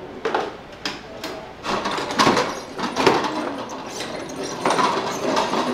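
Steel pots and lids clattering and knocking on a flat hand cart as things are set on it and it is pushed across a concrete floor: a string of irregular metallic knocks.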